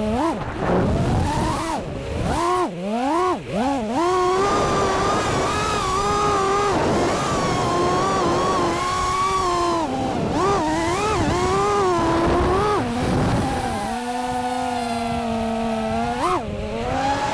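FPV quadcopter's brushless motors and propellers whining, the pitch swooping up and down quickly with throttle changes, with stretches held at a steady pitch in between.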